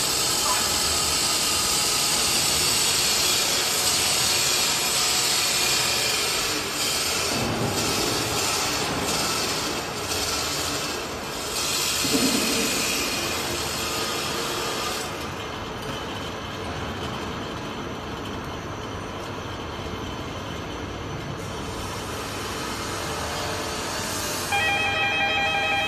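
Carousel running, a steady mechanical rumble and hiss of the turning platform and its drive. Near the end a steady pitched tone sounds over it.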